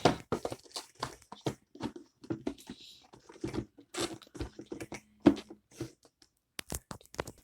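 Hands handling a tablet's packaging: a run of irregular small knocks, taps and rustles.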